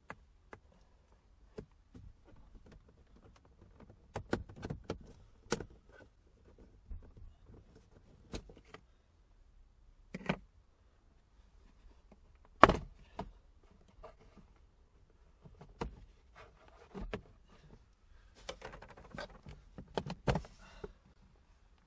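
Plastic interior trim being pried and pulled off a Toyota Prius, giving irregular clicks, knocks and light rattles as the clips let go. One sharp knock stands out about two-thirds of the way through.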